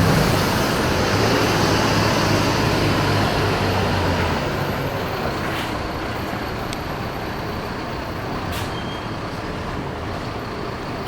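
Large diesel bus engine running close by with a low hum and loud noise over it. The hum fades out about four seconds in, leaving quieter traffic noise with a few faint clicks.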